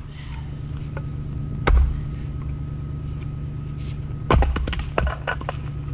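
Splitting axe striking a hard log on a chopping block twice with sharp cracks, the second blow followed by a quick clatter of knocks as the split wood falls, over a steady low hum.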